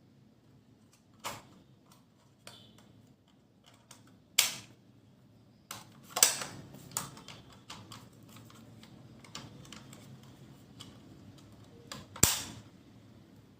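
Sharp mechanical clicks and snaps from a Nerf Rival Fate XXII-100 foam-ball blaster being handled and fired, with three louder snaps about four, six and twelve seconds in.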